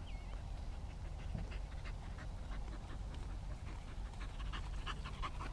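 A dog panting in quick, irregular breaths.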